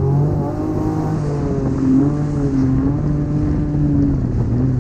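Jet ski engine running at speed, its pitch wavering slightly, with wind noise on the microphone and the hiss of water spray.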